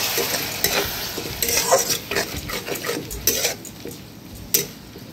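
Chopped tomatoes being stirred in a metal kadai with a plastic spatula, scraping and knocking against the pan. Under it the tomatoes sizzle as they fry in the masala, the sizzle dying down after a couple of seconds.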